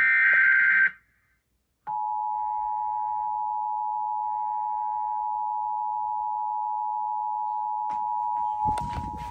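Emergency Alert System broadcast: a harsh, warbling data burst, the end of a SAME header, stops about a second in. After a second of silence comes the EAS attention signal, two steady tones sounded together, held for about seven seconds. Near the end, rumbling noise and clicks come in under the tone.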